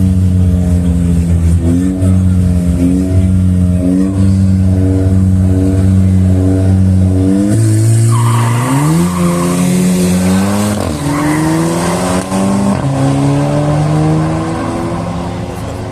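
Drag-racing car engine held at steady high revs on the start line, then launched about seven and a half seconds in with a squeal of tyres. Its pitch climbs and drops back several times through the gear changes as it pulls away and fades.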